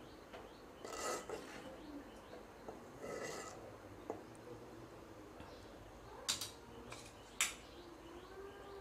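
Metal ladle stirring sambar in a metal cooking pot, scraping against the pot about a second in and again around three seconds, followed by two sharp clinks of metal on metal near the end.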